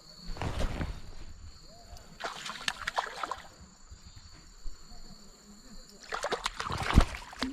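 Water splashing in three short bursts around a canoe, with a sharp knock about seven seconds in.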